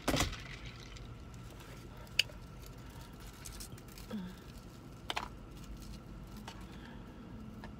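Quiet eating and food-handling sounds from takeout fried fish and shrimp: a short crunching rustle at the start, then a few scattered clicks and taps over a steady faint hum.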